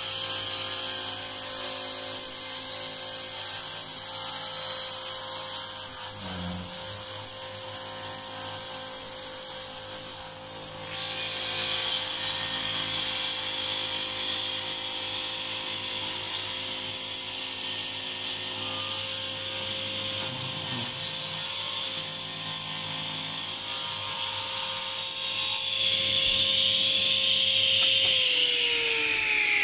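Table saw running while ripping a strip from a hardwood board fed past featherboards, a steady motor tone under the hiss of the cut. About four seconds before the end the cutting noise stops and the blade runs free. Near the end the saw is switched off and its pitch falls as it spins down.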